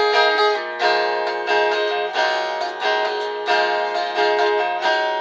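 Guitar strumming chords between sung lines, about two strums a second with no voice.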